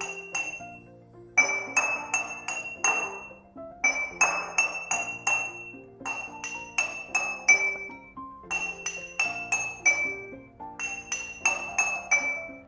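Glass clinking: sharp ringing taps in quick runs of four or five, repeated about every two and a half seconds, over background music.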